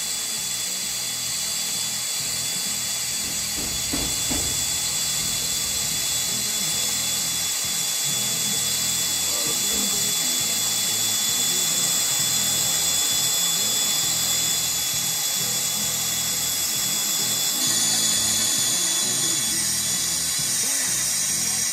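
Steady hiss of a brazing torch flame heating a copper air-conditioning suction line joint.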